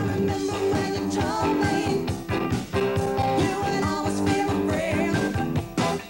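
A rock band playing a song, with a steady drum beat under held guitar and bass notes and a singer's voice. The music dips briefly near the end.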